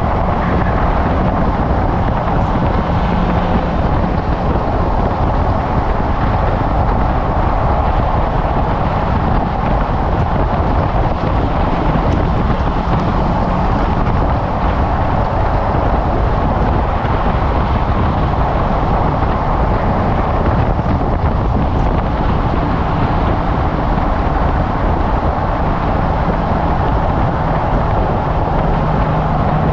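Car being driven on a race track at moderate speed: a steady mix of engine drone and road and wind noise picked up by a camera mounted on the car. A low engine tone comes up briefly near the start and again near the end.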